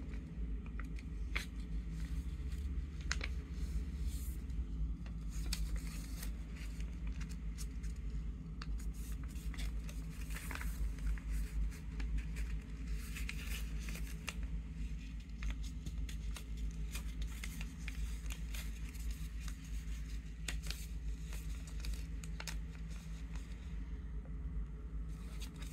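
A sheet of paper being folded and creased by hand, rustling with scattered crisp crackles, over a steady low hum.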